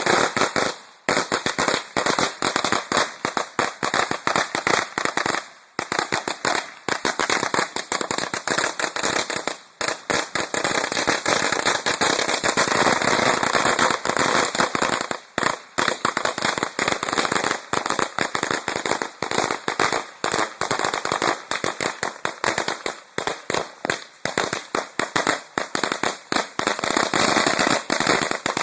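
A 1,000-count roll of firecrackers going off in a rapid, continuous string of sharp bangs, with a few brief stutters where the popping thins out.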